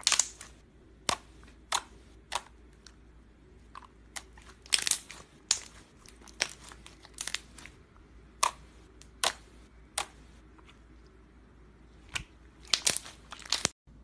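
Clear, bubbly slime squeezed in the hands and pressed flat with the fingertips, giving off irregular sharp crackling pops and clicks as trapped air bursts, with a quick cluster of them near the end.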